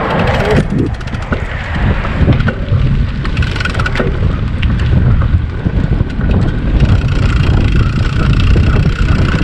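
Wind rumbling on the microphone of a bicycle in motion, with the ride's scattered clicks and rattles and a steady hiss of rolling noise.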